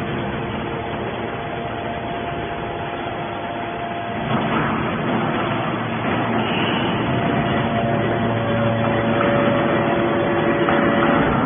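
Hydraulic metal scrap baler's motor and pump running: a steady mechanical hum and hiss with a few held whining tones, growing louder about four seconds in.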